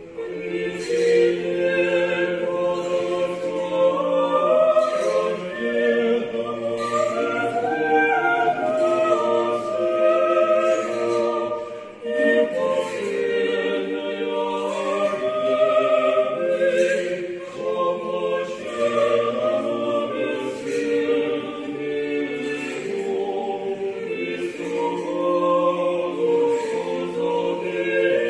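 Church choir singing Orthodox liturgical chant a cappella in several voice parts, holding chords over a low bass line, with a short break between phrases about halfway through.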